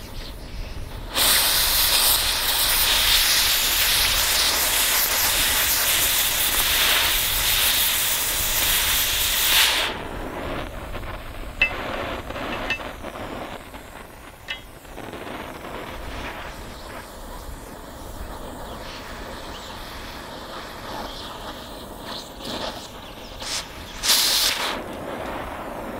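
Oxy-acetylene cutting torch hissing as it heats and cuts into an aluminum rifle receiver. A loud hissing rush starts about a second in and cuts off suddenly about ten seconds in. A quieter flame hiss with a few faint clicks follows, then another short loud burst near the end.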